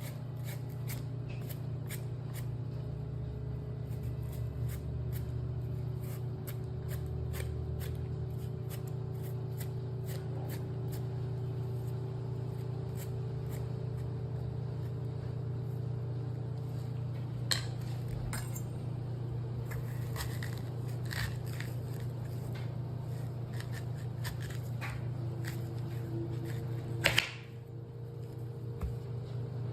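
A steady low hum with many small clicks and taps scattered through it, and one sharp knock near the end.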